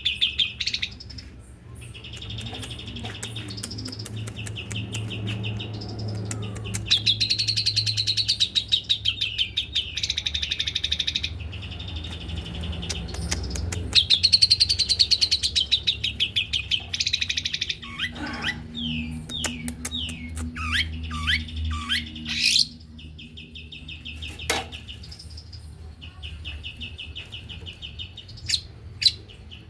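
Long-tailed shrike (pentet) singing a fast, dense song of rapid trilled phrases and chatter, with a run of falling whistled notes about two-thirds of the way through.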